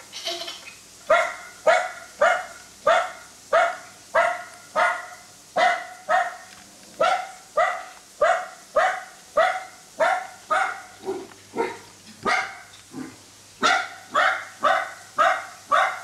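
Recorded dog barking played through a Bluetooth speaker: a long, even run of short barks, about two a second, starting about a second in.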